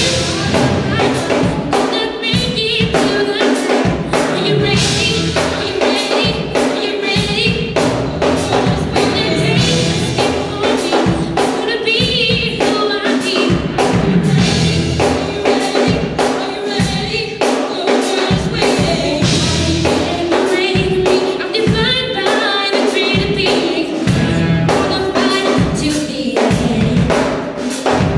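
A live band playing a song with singing over it, a drum kit keeping a steady beat.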